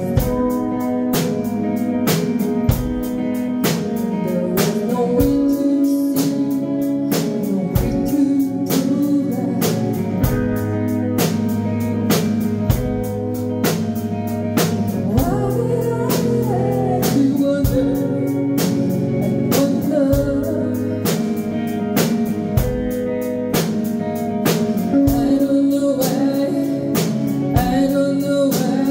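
Live rock band playing: a woman singing lead over electric guitars, bass guitar and a drum kit keeping a steady beat.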